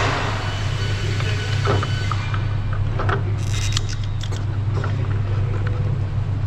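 A steady low hum with scattered clicks and short scraping noises over it.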